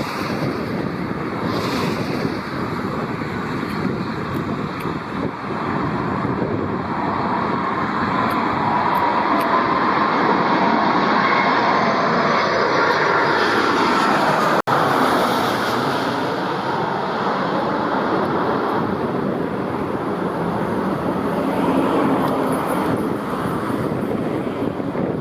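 Jet airliner on final approach passing close by: a steady engine roar with a whine that climbs toward the middle and then falls in pitch as it goes past, with a brief dropout about halfway through.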